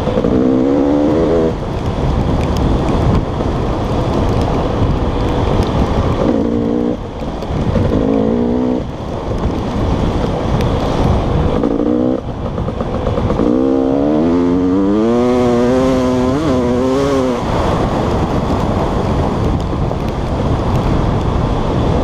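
Enduro dirt bike engine revving hard on a trail ride, its pitch climbing and dropping again and again as the rider works the throttle and gears. A rushing noise of wind, tyres on dirt and chassis rattle runs under it, heard from a camera mounted on the bike.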